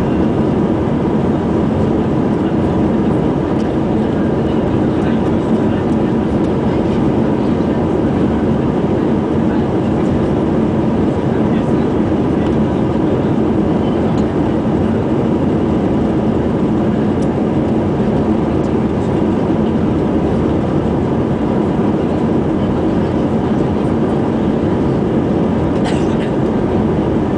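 Airbus A320 cabin noise during the climb after takeoff: the steady sound of its IAE V2500 turbofan engines at climb thrust and air rushing past the fuselage, heard inside the cabin behind the wing, with a faint steady hum. A couple of faint clicks come near the end.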